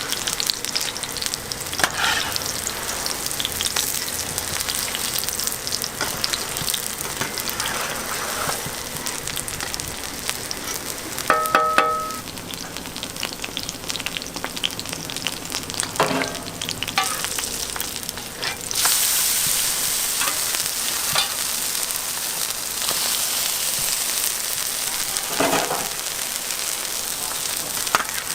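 Welsh onion pancake (pajeon) batter frying in oil on a hot griddle: a steady sizzle with scattered clicks and scrapes of utensils, the sizzle growing louder about two-thirds through. A brief pitched tone sounds a little before halfway.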